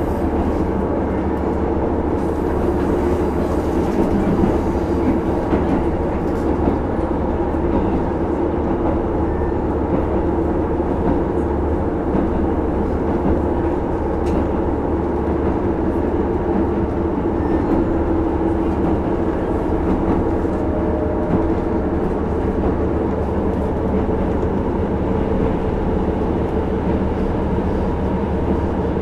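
JR KiHa 75 series diesel railcar running at a steady pace, heard from inside the car: engine drone with wheel and rail noise, even throughout.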